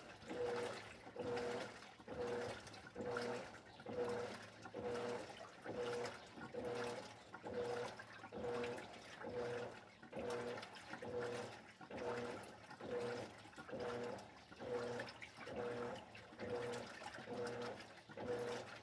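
Electrolux LED14 washing machine agitating a wash load: the motor hums in short strokes about once every second as the drive reverses back and forth, with water sloshing in the tub.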